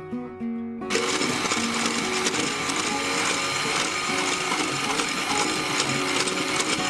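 Electric hand mixer switched on about a second in, its beaters whirring steadily through coffee, sugar and water in a stainless steel bowl, whipping it into dalgona coffee foam.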